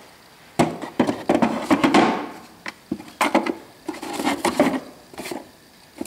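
Rummaging in a wooden drawer of old machine parts: an irregular string of knocks, clatters and short scrapes as metal pieces and small cardboard boxes are moved about against the wood.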